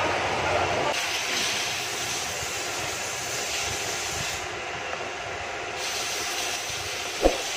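Steady background noise, a continuous hiss and rumble with no clear tone, with a single sharp click near the end.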